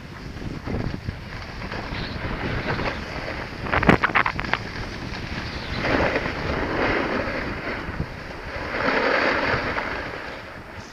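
Wind rushing over the microphone while sliding down a snow slope, with swells of edges scraping and carving on the snow, a sharp rasping scrape about four seconds in.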